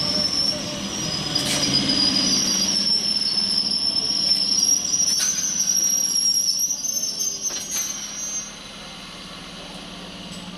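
An electric multiple unit local train squealing from its wheels and brakes, a high, slightly rising whistle with a few clicks, which cuts off about eight seconds in as the train comes to a halt. A low steady hum is left after it.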